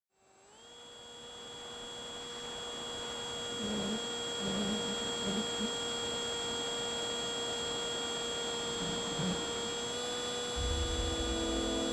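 RC plane's motor and propeller whining steadily as heard through the onboard camera, fading in at the start, with a slight rise in pitch about ten seconds in. Background music with a bass line comes in near the end.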